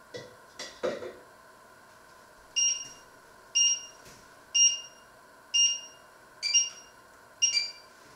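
Three short knocks, then six short electronic beeps about a second apart, each a clear high tone, the last two with extra pitches, like a kitchen appliance's timer or controls.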